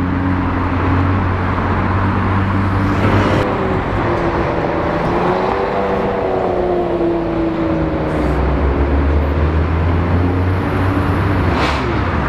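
Sports car engines running in street traffic, with the engine pitch rising and falling in the middle as one car accelerates away. The sound changes abruptly twice.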